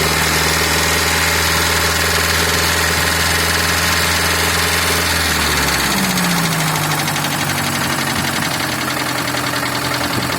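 GAZelle 2705 van's petrol engine running with a knock in the engine. About six seconds in its low steady note drops away with a short falling tone, and the running continues.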